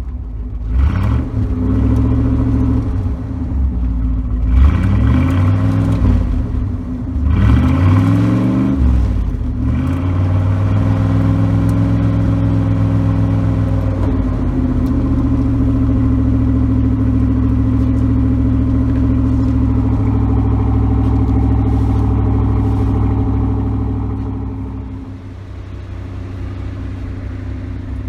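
1984 Pontiac Trans Am V8 revved three times in quick succession, then holding a steady fast idle. Near the end the idle drops lower and quieter. The engine is running after its first start in years.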